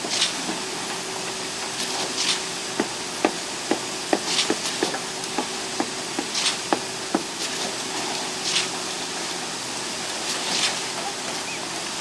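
Concrete pump running steadily, with a regular hiss about every two seconds as it cycles, and a run of sharp knocks in the middle.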